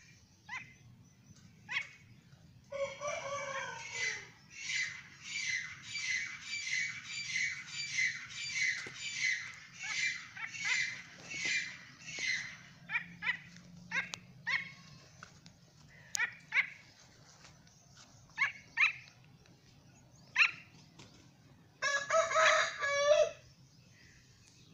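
Grey francolin calling: a rapid run of harsh, repeated notes, about two a second, lasting about ten seconds. Scattered short chirps follow, then a loud dense burst of calls near the end.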